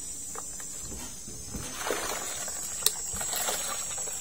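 Water being poured and splashing into a container of rice batter mix, starting about a second and a half in, with one sharp click near the three-second mark. A steady high chirring of insects runs underneath.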